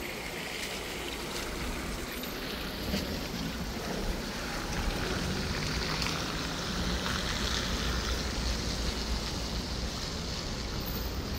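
Heavy rain falling in a steady hiss, with a low rumble underneath.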